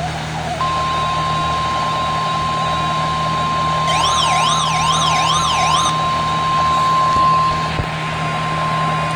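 Emergency alert tone for a flash flood warning: one steady high beep held for about nine seconds. It is the single-tone warning alarm used by Weather Radio alerts. For about two seconds in the middle, a fast wailing siren-like warble, about two sweeps a second, sounds over it, above a steady low hum.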